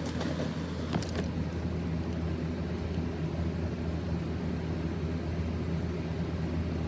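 A steady low mechanical hum, with a few light clicks in the first second or so.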